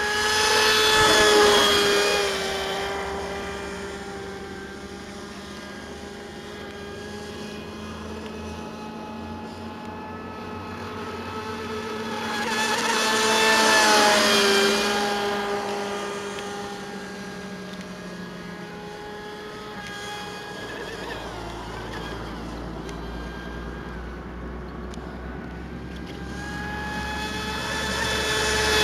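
Delta Force Mini Sniper RC boat's brushless electric motor (Turnigy 3656, 2600kv) whining as the boat runs laps at speed. It is loudest three times, about every 13 seconds, as it passes close, and fades in between.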